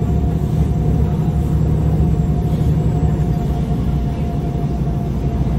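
Diesel engine of a 2014 MAN Lion's City G articulated bus idling steadily: a low, even rumble with a steady high tone over it.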